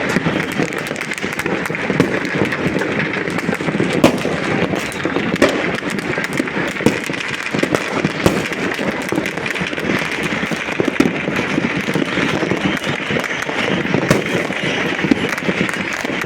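Fireworks and firecrackers going off all over a city at once: a continuous dense crackle, broken by sharper, louder bangs every second or two.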